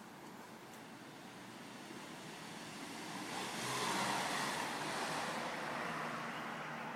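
A vehicle passing by: a rushing noise that swells about three seconds in and slowly fades.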